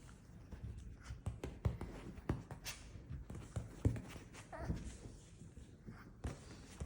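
A string of irregular soft taps and knocks with light rustling, a dozen or so scattered strokes with a few louder thuds.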